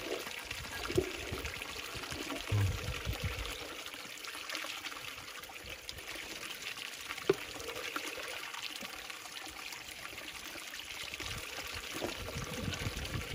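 Spring water running and pouring in a small stream, a steady rush of water, with one brief knock about seven seconds in.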